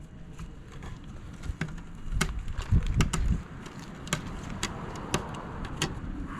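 A hand patting a cat's lower back: a series of sharp pats, roughly two a second, over a low rumble of wind or handling on the microphone.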